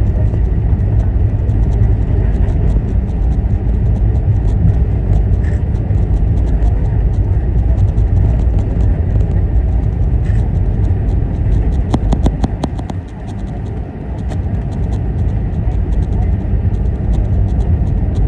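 Airbus A320 cabin noise while taxiing: a steady low rumble of the engines at taxi power and the aircraft rolling on the ground, with faint rattling ticks throughout and a brief drop in level about two-thirds of the way through.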